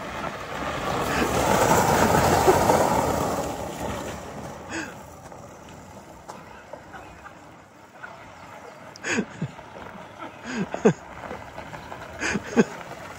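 Electric golf cart doing donuts on loose gravel: its tyres skid and crunch over the stones in a swell of gravelly noise, loudest about two seconds in, then fading as the cart circles away.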